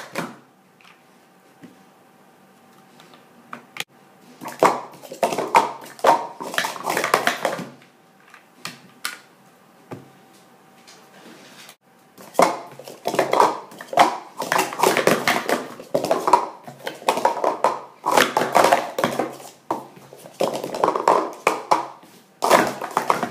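Plastic sport-stacking cups clattering in rapid runs of taps as they are stacked up into pyramids and collapsed back down on a stacking mat. A short run comes about a quarter of the way in, and a long, nearly unbroken run fills the second half.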